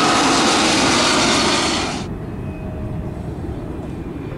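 Loud, steady jet engine noise of a Boeing 767 freighter on final approach with gear down, cut off abruptly about two seconds in. A quieter low rumble follows.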